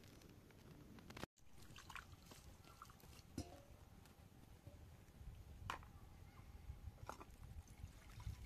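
Near silence broken by a few faint clinks of a steel kettle and metal cups being handled, three light taps with the sharpest a little past halfway.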